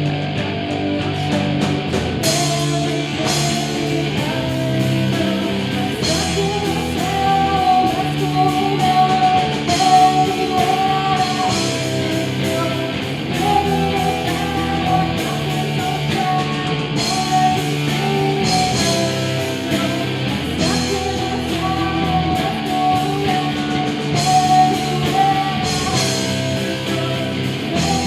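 Rock band playing a song on guitars, bass and drums, with a sustained melodic lead line; the sound fills out in the highs about two seconds in.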